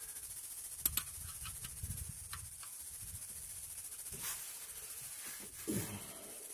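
A few faint clicks and scrapes of tool and hand handling at the oil drain plug as it is wiped off and snugged tight.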